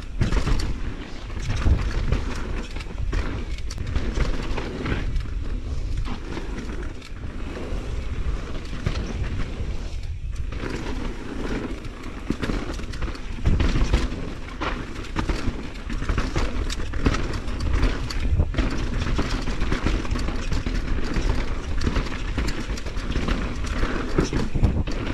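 Focus SAM² electric mountain bike descending a fast dirt singletrack: steady low rumble of the tyres and wind buffeting the microphone, broken by frequent sharp knocks and rattles as the bike hits bumps.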